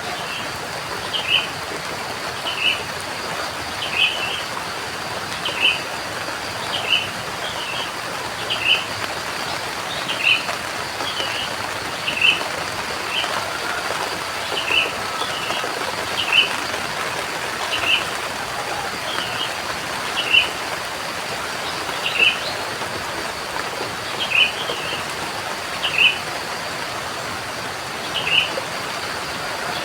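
Steady rain with a bird repeating the same short, high chirp about every one and a half seconds.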